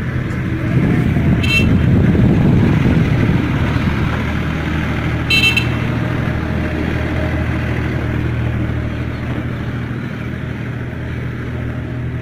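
Auto-rickshaw's small engine idling steadily, with a louder rush of noise from about one to three seconds in and two brief high-pitched toots.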